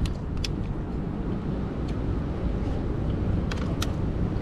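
Steady low rumble of street noise outdoors, with a few light clicks: one near the start and two close together later.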